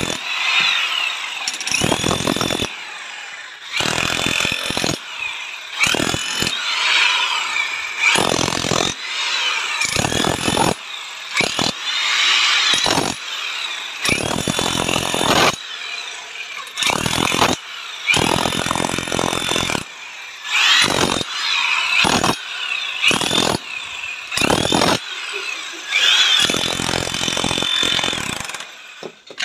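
iBell DH10-78 electric demolition hammer chiselling a channel into a plastered brick wall. It runs in stretches of one to a few seconds with short pauses between, its motor whine rising and falling as it is worked.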